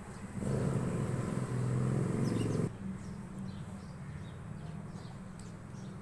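An engine's hum swells loud for about two seconds and then cuts off abruptly, over a steady low drone, with brief faint bird chirps high above it.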